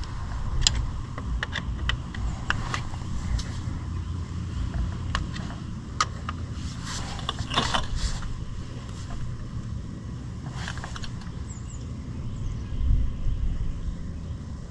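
A T-handle Allen key turned by hand in case saver bolts on an ATV engine: scattered light metallic clicks and scrapes at irregular intervals, over a steady low rumble.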